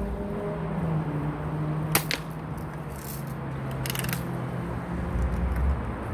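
An air rifle fires once, a single sharp snap about two seconds in, followed about two seconds later by a short run of mechanical clicks as the rifle is worked for the next shot.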